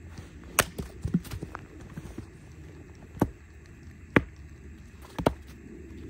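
Hatchet splitting firewood on a wooden chopping block: several sharp knocks of the blade biting into the wood, a few seconds apart, the last a quick double strike.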